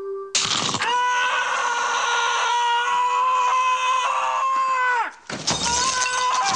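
A man screaming: one long, high, held cry that falls off about five seconds in, followed by a second scream.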